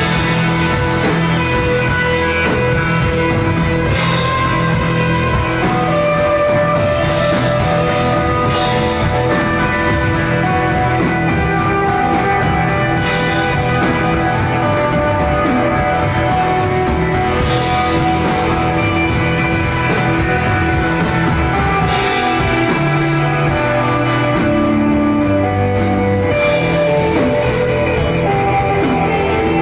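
Live band playing an instrumental desert rock jam: sustained electric guitar and bass notes at a steady, loud level, with bright swells every four to five seconds.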